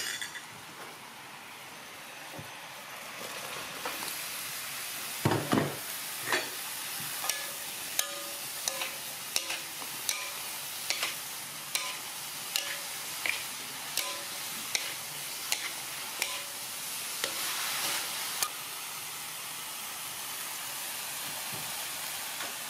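Sponge gourd chunks sizzling in a hot metal wok, with a loud clatter about five seconds in. A spatula then clanks against the wok about once or twice a second as the food is stir-fried.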